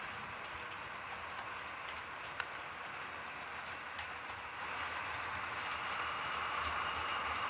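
Model HST train on a model railway layout: a steady running noise that grows louder a little past halfway as the train starts to pull away, with one sharp click a little over two seconds in.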